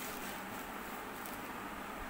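Steady low hiss of room tone, with no distinct event.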